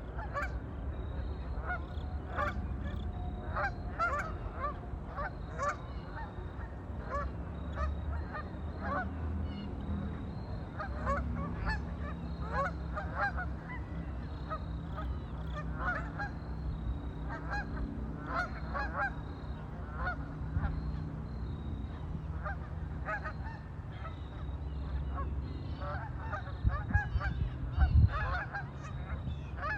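A flock of waterfowl calling continuously, many short honking calls overlapping, over a steady low rumble, with a couple of louder low thumps near the end.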